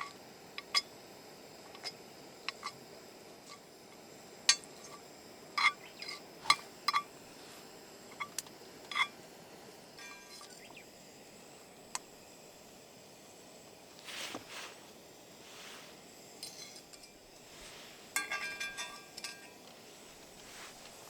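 Light clinks and taps of tableware and cooking utensils, a dozen or so sharp strikes with brief ringing at irregular intervals, bunched into a quick run near the end.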